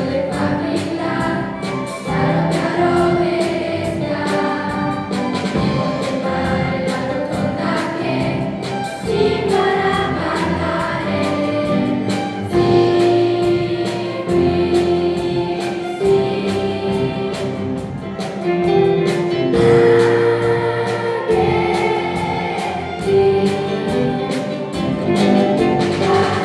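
Children's choir singing in unison with a school orchestra of violins, guitars and drums, over a steady beat.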